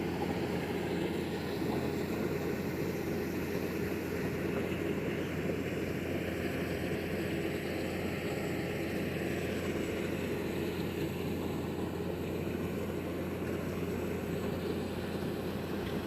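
Engine of heavy construction machinery running steadily, with a constant low hum beneath it.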